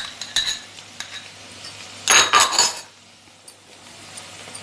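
A spoon clinking and scraping against a small glass bowl as chili sauce is tipped out of it, with a few sharp clicks at first and one louder scraping clatter about two seconds in, lasting under a second.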